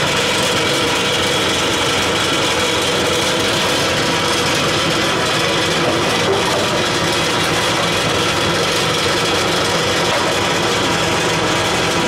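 Industrial machinery running steadily: a continuous mechanical drone with several steady tones through it, unchanging throughout.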